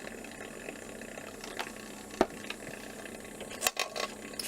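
Two sharp knocks, about two seconds in and again near the end, over a faint steady hiss.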